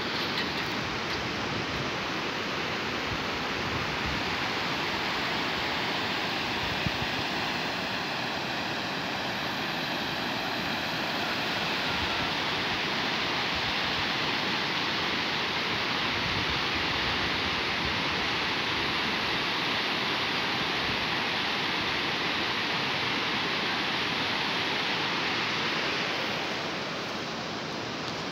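Steady rushing of a fast-flowing river, an even wash of water noise, a little quieter near the end.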